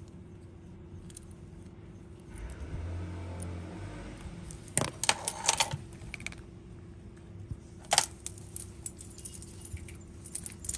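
Metal tag and beads on a cat's collar jingling in short bursts as the cat moves about, loudest about five seconds in and again near eight seconds. A brief low rumble comes a couple of seconds in.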